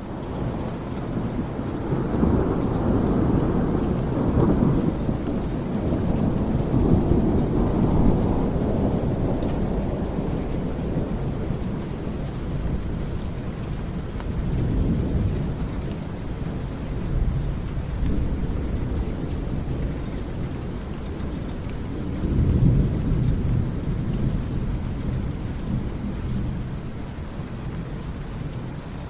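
Steady rain with rolling thunder, a low rumble that swells loudest over the first several seconds and again about two-thirds of the way through.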